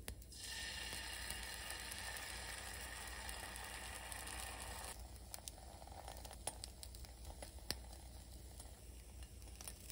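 Beaten egg sizzling as a spoonful is poured into a hot oiled nonstick frying pan, a faint even sizzle that stops suddenly about five seconds in. After that, a quieter stretch with a few sharp clicks as wooden chopsticks lay vegetable and ham strips in the pan.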